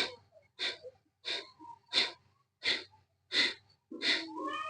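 Kapalbhati breathing: a steady run of short, sharp, forceful exhalations through the nose, about three every two seconds, with quiet passive inhalations between them.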